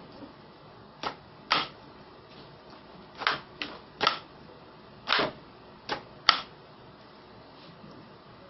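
Hard plastic clacks from a homemade PVC airgun as its mechanism is worked by hand: about eight sharp clacks, unevenly spaced and some in quick pairs, stopping after about six and a half seconds.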